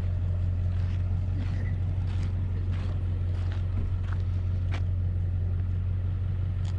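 Truck engine running: a steady low hum with a few faint clicks and ticks over it.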